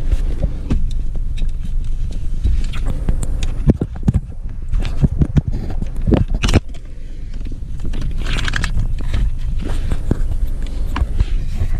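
Plastic clicks, knocks and scraping from wiring-harness connectors being pressed and pulled off the back of a car radio, over a steady low hum. The clicks bunch up a few seconds in, and a short scrape follows.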